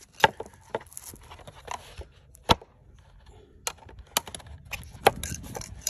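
A hooked pry tool scraping and clicking against the hard plastic housing of a car fuse box module while prying at its release tab: a string of sharp clicks and knocks, the loudest about a quarter second in, at about two and a half seconds and at about five seconds.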